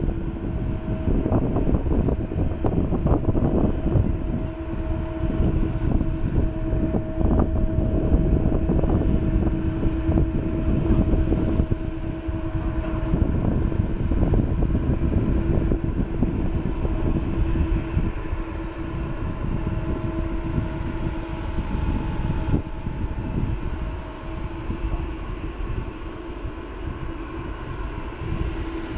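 Boeing 777-200ER's Pratt & Whitney PW4000-series turbofans running at idle while the airliner taxis, giving a steady low rumble with a steady whine on top. The whine fades about three-quarters of the way through as the aircraft turns side-on.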